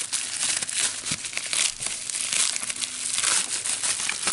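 Plastic packaging crinkling and crackling continuously as it is handled, full of small sharp crackles.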